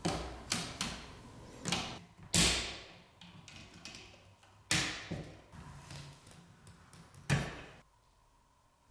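About six sharp clicks and knocks, each dying away quickly: a duplex wall outlet and screwdriver being handled and the outlet screwed into its metal wall box.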